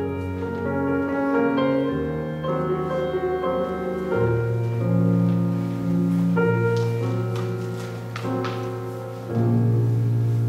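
Slow instrumental music: sustained chords over a held low bass note, the harmony changing every second or two, with a louder chord coming in about nine seconds in.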